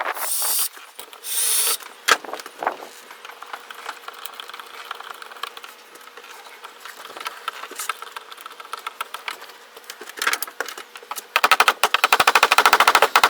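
Power tool driving screws into wood: two short bursts of tool noise at the start, scattered clicks and knocks in between, then a fast, even rattle of impacts near the end, typical of an impact driver sinking a screw.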